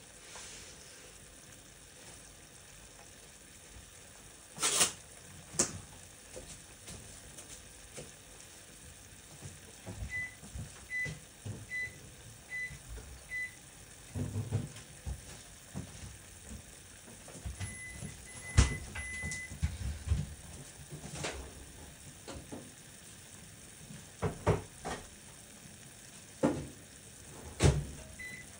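Scattered kitchen knocks and clatters. About ten seconds in, five short electronic beeps sound evenly, under a second apart, and a longer beep follows near eighteen seconds.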